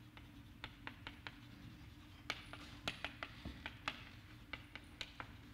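Chalk writing on a blackboard: a run of irregular sharp taps and short scratches of chalk strokes, over a low steady room hum.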